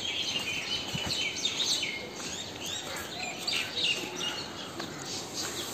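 Birds chirping and singing: a dense run of short, high chirps and brief gliding whistles.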